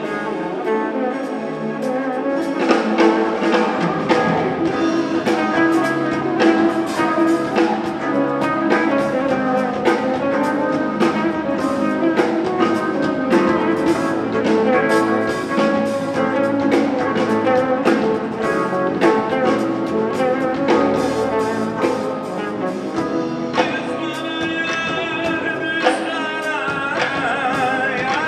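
Live band playing a song with a singer, electric guitar, long-necked lute, keyboard and drum kit. The drums come in about two and a half seconds in and keep a steady beat.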